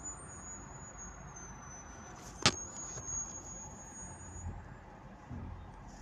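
Low, steady hum of a car cabin creeping in heavy traffic, with one sharp click about two and a half seconds in.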